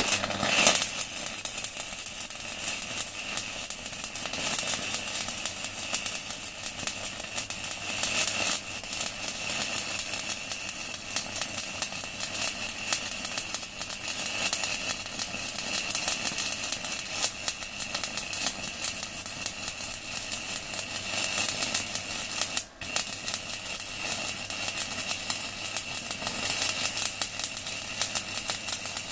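Stick-welding arc from a 4 mm UONI electrode run at 160 amps, crackling and sizzling steadily, with one momentary break about two-thirds of the way through.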